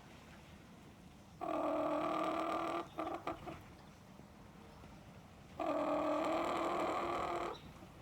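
A chicken giving two long, drawn-out steady calls, with a few short clucks after the first. It is the cry the owner says the bird makes when lonely, shut out of the house.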